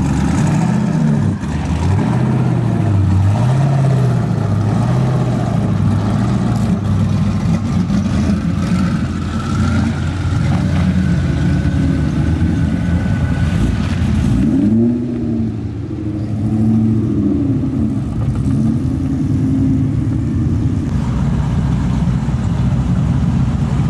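High-horsepower car engines idling and being revved, the engine note swelling up and falling back again and again. Past the middle the hiss above it drops away, and a fresh series of rev swells follows.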